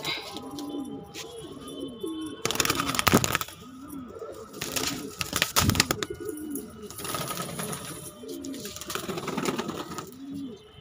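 Domestic pigeon cooing over and over, a steady run of rising-and-falling coos. Several louder bursts of wing flapping come in between, while a bird spreads and raises its wings.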